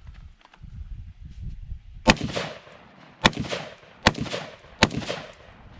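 AR-style rifle fired four times with uneven spacing, about a second apart. Each sharp shot trails off in a short echo.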